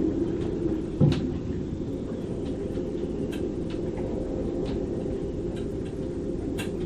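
Storm wind gusting through a moored sailboat's rigging: a steady low rumble with a faint held howl in it, scattered small ticks and taps, and one louder knock about a second in.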